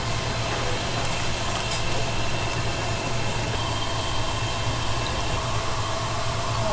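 Ramen broth boiling hard in a pan over a gas burner: a steady bubbling hiss over an even low hum.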